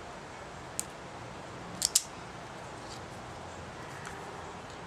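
Self-adjusting wire stripper squeezed on a black wire to pull the insulation back without cutting it: a faint click about a second in, then two sharp clicks close together about two seconds in.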